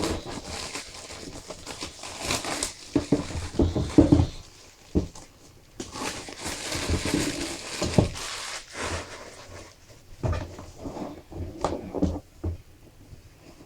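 Hands handling packaging: rustling and crinkling with irregular light knocks and thumps as a boxed laptop is unwrapped.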